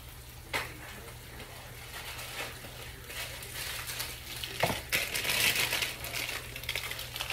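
Crinkling and rustling handling noise with a sharp click about half a second in and a knock just before the louder stretch; the crinkling grows dense and loudest in the second half. A steady low hum runs underneath.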